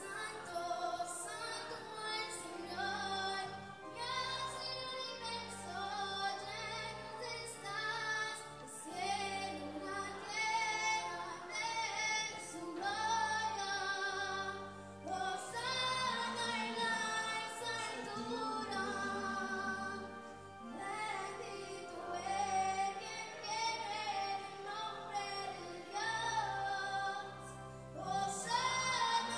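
A female voice singing a slow melody with vibrato, accompanied by an electronic organ holding steady bass notes.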